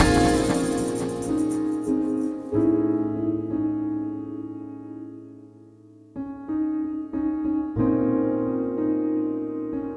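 Background music: soft piano or electric piano chords that fade away and come back in about six seconds in.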